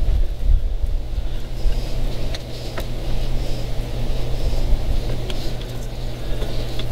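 A steady low rumble throughout, with a few faint light clicks from a cable end fitting being hand-threaded onto the threaded end of a boat throttle/shift control cable.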